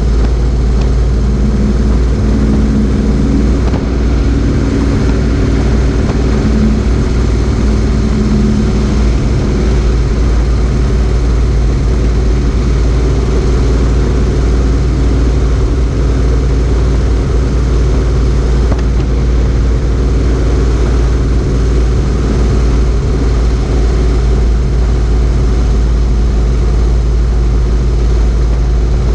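Motorcycle cruising at steady road speed: the engine running evenly under a heavy rush of wind on a microphone mounted low by the front wheel. A steadier engine note stands out for the first several seconds.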